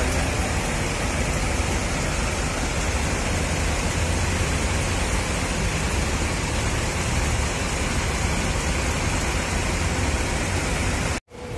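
Parked intercity coach's engine idling, heard from right at the back of the bus as a steady low rumble under a wide hiss. It cuts off abruptly near the end.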